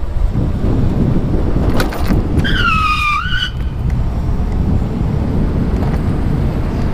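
Steady, loud, low rumble of an electric mountain bike being ridden off-road, with a few clicks and, a little over two seconds in, a high squeal lasting about a second that dips and rises in pitch.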